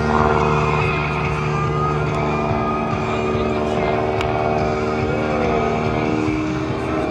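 Propeller airplane's engine running steadily at an even pitch, one low tone in it dropping away about two and a half seconds in.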